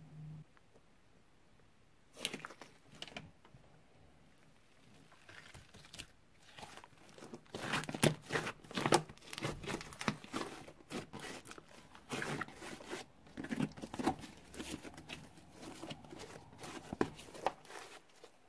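Thick beaded slime being squeezed and kneaded by hand, giving sticky pops and crackles. A few single clicks come first, then a dense, irregular run of crackling from about five seconds in, loudest around eight to nine seconds.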